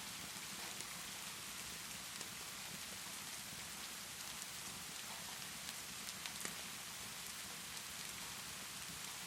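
Steady rainfall, an even dense hiss, with a few sharp crackles from a wood fireplace a little past the middle.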